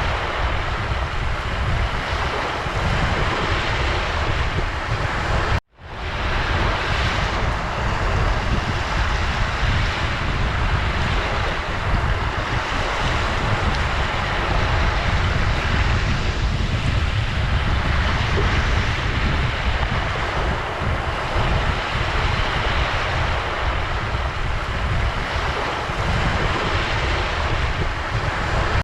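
Ocean surf washing steadily on a shore, with a strong low rumble underneath. The sound cuts out abruptly for an instant about six seconds in and fades back up.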